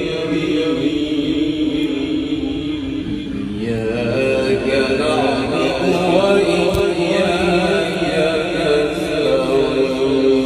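A man reciting the Quran in a drawn-out, melodic chanting style (tilawat), holding long notes, with pitch glides a few seconds in.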